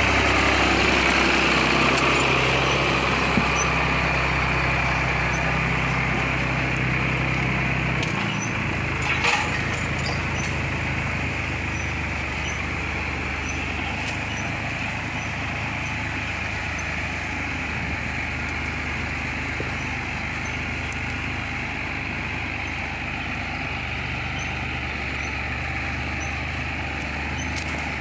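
Ford 4130 tractor's diesel engine running steadily. Its low note shifts about eight seconds in, with a single sharp knock just after.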